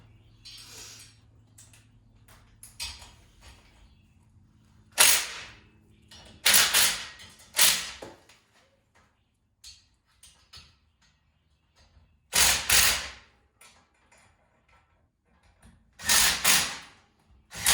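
Several short, loud scraping and clattering noises, about five in all with quiet gaps between, from metal engine-mount parts and bolts being handled and shifted.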